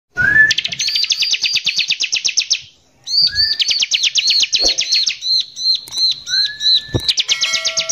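Bar-winged prinia (ciblek) singing in a fast, rough 'nembak' style. Each phrase is a short rising note followed by a rapid trill of high, arched notes, about eight a second. There is a brief pause near three seconds in and a single low thump about seven seconds in.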